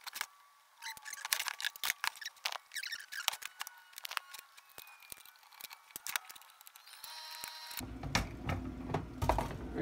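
Irregular small clicks, taps and light metallic knocks from handling a mantel clock's hands, steel case and movement with tools on a workbench. A duller, lower handling noise sets in near the end.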